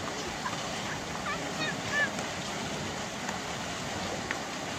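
Busy outdoor water-park pool: a steady wash of splashing water, with a few short, high distant children's shouts about one to two seconds in.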